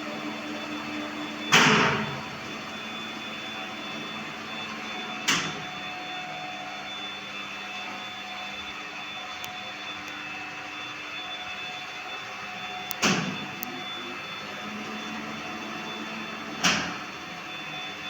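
Steady machine whir with a faint hum, broken four times by sharp knocks.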